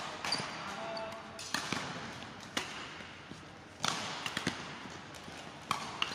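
Badminton rackets striking a shuttlecock during a rally: sharp hits about a second apart at irregular intervals, echoing in a large sports hall.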